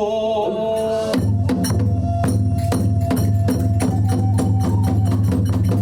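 A kagura performer's chanted line ends on a held note, then about a second in the kagura hayashi ensemble strikes up: a fast, even beat of drums and small hand cymbals over steady pitched tones.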